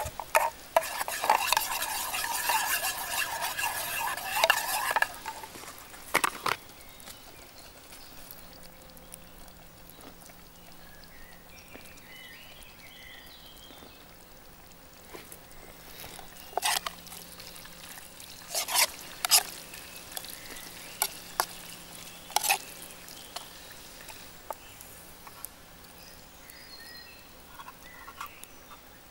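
A metal spoon scraping and stirring in a metal camp pan of sauce for the first few seconds. After that come scattered single clinks of a utensil against the metal pan and mess tin.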